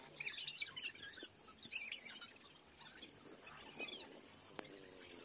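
A thin metal blade scraping faintly as it cuts slanted ring grooves into a cement-mortar kalash. Short, high, squeaky chirps come a few times over it, the loudest about two seconds in.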